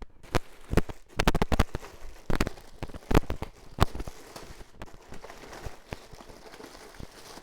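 Plastic bag crinkling and crackling as an LED light panel is handled and drawn out of it: a dense run of sharp crackles in the first four seconds, then softer rustling.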